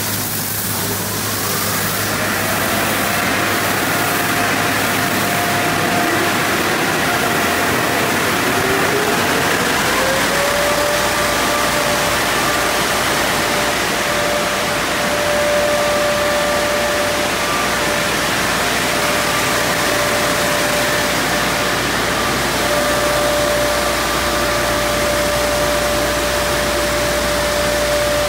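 Car wash tunnel: water spray hissing at first, then the dryer's electric blower motors spinning up, a whine rising in pitch over several seconds and then holding steady at full speed over a low hum and a steady rush of air and water.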